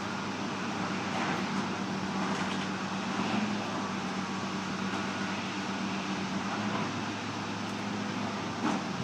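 John Deere backhoe's engine running steadily with a constant hum. There is a single short knock near the end.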